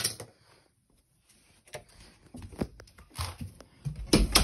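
Handling noise from a phone camera held in the hand, with a finger over the lens: a sharp click at the start, then scattered taps and rubbing on the microphone, ending in a louder bump.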